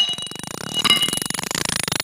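Logo sting sound design: a bright metallic ping at the start and another about a second in, over a fast ticking rhythm that builds into music.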